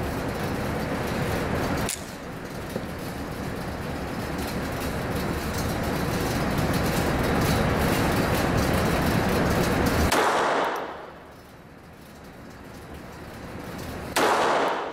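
Two shots from a Ruger Mark III pistol, about ten seconds in and about fourteen seconds in, each a sharp crack with a short echoing tail in an indoor range. Before the first shot there is a steady rushing noise, which cuts off with it.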